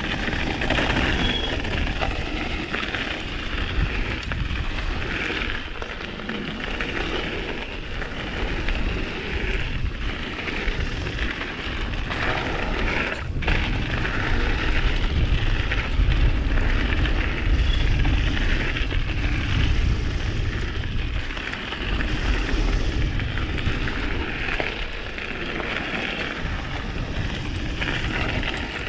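Mountain bike riding down a trail, heard through a chest-mounted GoPro: tyres rolling over the dirt and wind rushing over the microphone, with the low rumble growing heavier around the middle.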